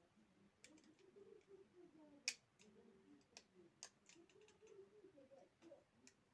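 Faint, scattered small clicks and ticks from handling a computer mouse cable's wires and connector with small hand tools, with one sharper click about two seconds in.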